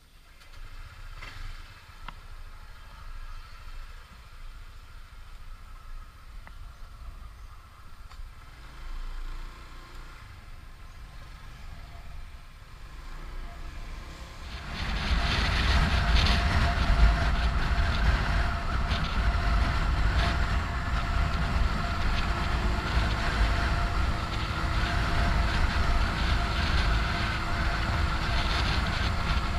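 Honda PCX125 scooter's single-cylinder engine: a faint low hum with the scooter standing, then about halfway through it switches suddenly to much louder riding noise, the engine running under way with rushing air, which stays loud to the end.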